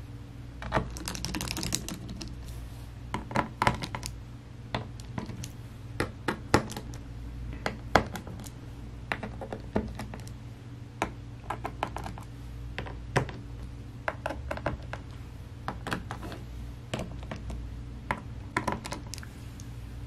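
Irregular small metallic clicks and ticks, some in quick runs, as a precision screwdriver drives the pentalobe screws back into a MacBook Air 2020's aluminium bottom cover. A steady low hum runs underneath.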